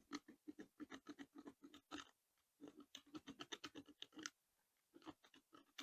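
Faint, rapid clicking, about seven clicks a second in three short runs, from hand work on the underside of a Zenith carburetor.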